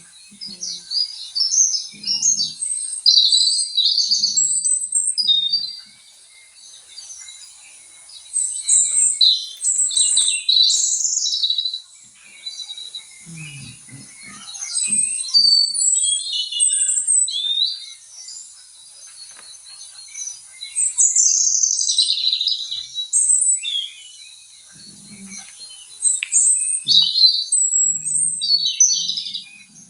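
Small birds chirping and twittering, several calls overlapping in quick high trills. They come in loud bouts of a few seconds, with quieter spells between.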